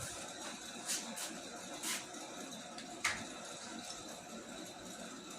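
A few faint, short clicks and light scrapes of an Allen wrench being fitted onto the set screw of a winch pulley.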